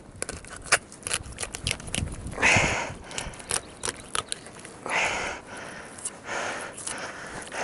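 Handling noises while gutting perch by hand: scattered small clicks and taps, with a few short hissing sounds about every two seconds.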